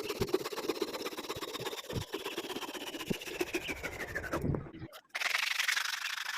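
Wood lathe turning an axe handle with rapid rhythmic rubbing against the spinning wood, then the lathe's whine falling steadily in pitch as it winds down. After a short break there is about two seconds of hissy scraping noise.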